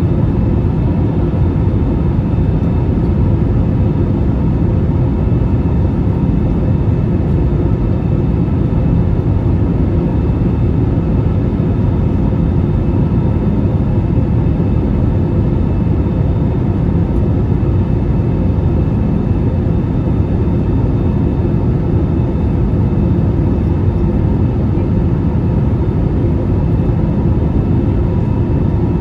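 Steady cabin noise inside an Airbus A320-214, the drone of its CFM56 turbofan engines and the rush of air over the fuselage, with a few faint steady tones above the low rumble.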